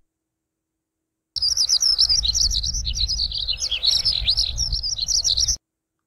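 Lark singing a fast, unbroken run of high twittering, warbled notes, starting about a second and a half in and cutting off abruptly near the end, over a low rumble.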